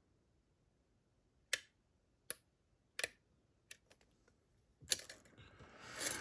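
Small metallic clicks from lock picks working the pins of a Dorma DC500 lock: four sharp clicks less than a second apart, then a softer rustle of handling noise that builds near the end.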